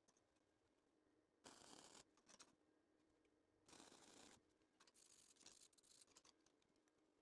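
Faint flux-core welding arc crackling in short bursts, like tack or stitch welds: one about a second and a half in, another around four seconds, then a fainter, broken stretch a little later. The welder is turned down to run on thin-wall tube near the point of running too hot.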